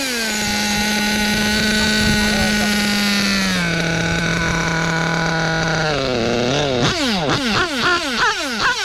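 Novarossi Mito 35 .21 nitro two-stroke engine in a 1/8 scale BMT 016 GT RC car on its first start. It holds a steady high buzz that drops in pitch twice, in two steps, then is blipped repeatedly, revving up and falling back about twice a second. The engine is not yet tuned: it falls back to idle in two stages, with the idle and low-end mixture still to be set.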